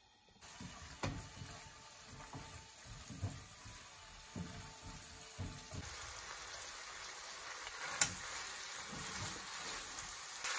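Minced meat sizzling in a frying pan over a gas burner, starting about half a second in, with irregular knocks and scrapes of a rice paddle stirring rice into the pan.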